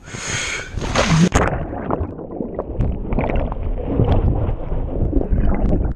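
A splash as a person goes over from an inflatable raft into the river, then about a second and a half in the sound turns muffled as his head-mounted action camera goes under water: low rumbling, bubbling and gurgling of the water against the camera.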